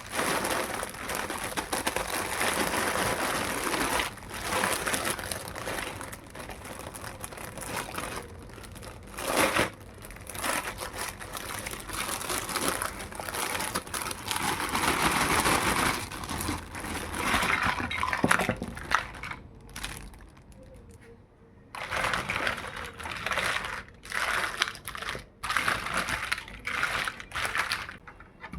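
Plastic packaging crinkling and rustling in irregular bursts as a toy makeup kit is unwrapped, with a few sharper crackles.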